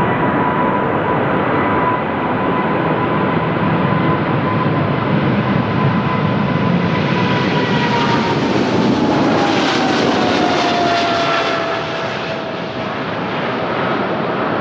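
Departing airplane's engines running at takeoff power: a steady rushing roar with a high whine that slides down in pitch about halfway through as the plane passes by and moves away.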